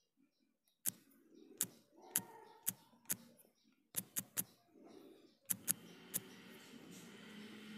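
About eleven sharp, quiet clicks in small irregular clusters as a number is typed on a smartphone's on-screen keyboard, one tap per digit, followed near the end by a faint steady hum.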